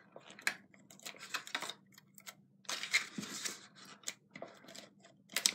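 Folded cardstock box being handled and pressed while a handheld adhesive dispenser is run along a flap: irregular clicks, taps and paper rustles.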